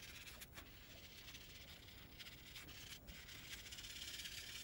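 Faint soft rubbing and dabbing of a fingertip ink sponge worked over the edge of a cardstock panel, growing slightly louder near the end.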